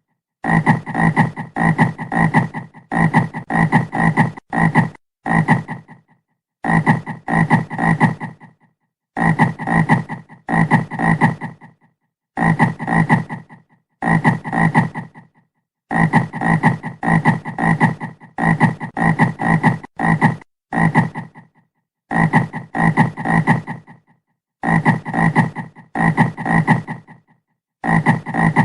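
A frog croaking in rapid runs of short, loud croaks, about two to three a second, each run of three to five croaks broken off by a brief pause.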